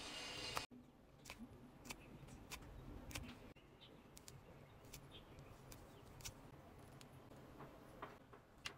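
Faint, irregular clicks and taps of fingers handling clear plastic film and tape, about a dozen sharp ticks spread unevenly through the quiet.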